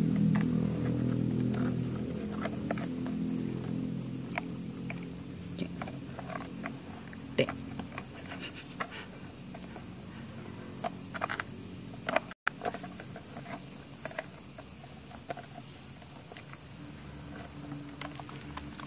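Crickets trilling steadily, with scattered light metallic clicks and rattles as a wire grill basket is closed and its wire fastener twisted shut by hand. A low hum fades away over the first few seconds.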